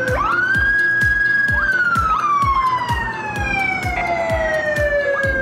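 Police car siren wailing: a quick rise to a held high note for about a second and a half, then one long slow fall, over music with a steady beat.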